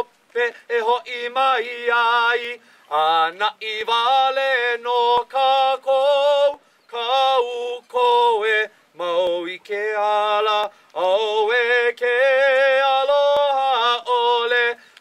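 A voice singing a Hawaiian mele in a chant-like style: long held notes with vibrato, in phrases broken by short pauses.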